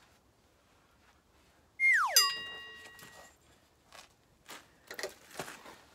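An edited-in cartoon sound effect about two seconds in: a quick downward whistle glide, then a bright metallic ping that rings and fades over about a second. Near the end come a few faint clicks and rustles of the oil dipstick being handled with a rag.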